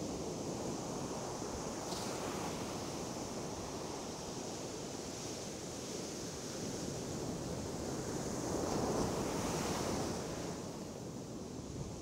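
Sea surf washing on the shore in a steady rush, with one wave swelling louder about nine seconds in and then falling away.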